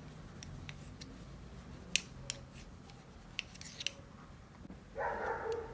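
Metal knitting needles clicking against each other as stitches are worked. Faint sharp clicks come about two seconds in and again a few times between three and four seconds in.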